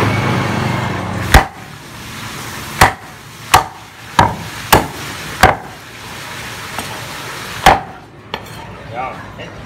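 Seven heavy chops of a handmade Phaluong cleaver through Muscovy duck meat and bone onto a wooden chopping board, at uneven intervals of roughly a second, the first and last the loudest.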